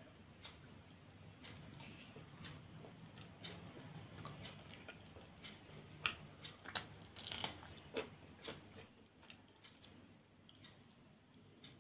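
Faint close-up eating sounds: chewing and wet mouth clicks as a fried piece is torn by hand and bitten, with a run of sharper crisp clicks a little past halfway.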